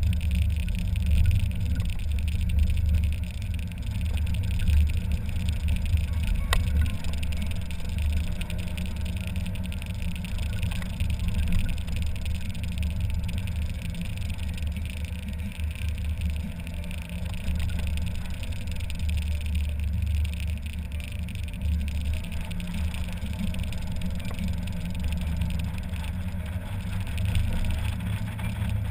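Mazda Miata roadster driving with the top down: a steady low rumble of engine, tyre and wind noise heard in the open cabin.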